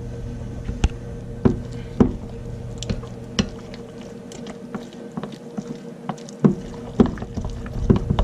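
A spoon stirring a thick, cheesy cream-of-chicken sauce, with irregular wet squishes and sharp knocks against the pot, over a steady low hum.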